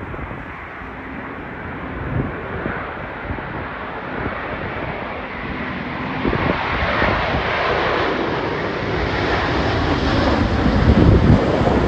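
Airbus A350-900 on approach, the jet noise of its Rolls-Royce Trent XWB engines growing steadily louder as it nears. Strong wind buffets the microphone.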